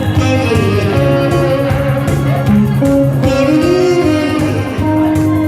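Instrumental fill between sung lines of a Korean ballad: a guitar plays the melody, with bending, gliding notes over a steady bass accompaniment.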